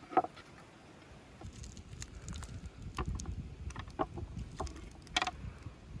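Wooden skewers clicking and knocking as they are pushed through raw trout and handled, several separate sharp clicks with the loudest just after the start. A low steady rumble runs underneath.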